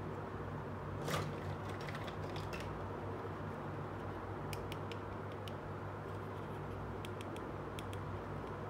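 Small hard-plastic toy pieces clicking and tapping as they are handled and set down, a sharp click about a second in and scattered lighter clicks after, over a steady low hum.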